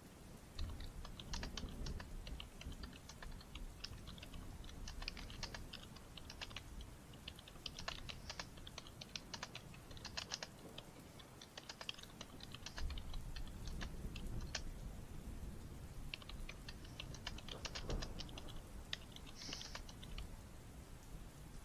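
Computer keyboard being typed on: quick, irregular runs of key clacks with short pauses between bursts. A low rumble sits underneath at times.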